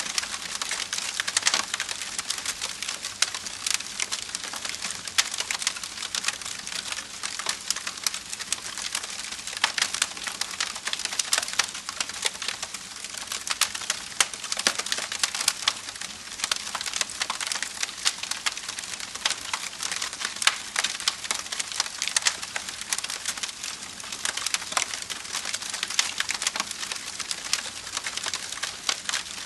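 Wood fire crackling: a steady hiss with many small, sharp pops and snaps.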